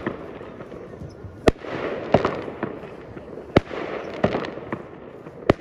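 Fireworks going off: three sharp bangs about two seconds apart, each followed by a spell of crackling and smaller pops.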